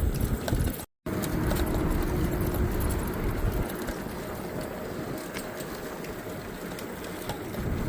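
Wind rumble on the microphone and tyre noise from a bicycle being ridden along a trail, with a few light clicks and a brief complete cut-out of the audio about a second in.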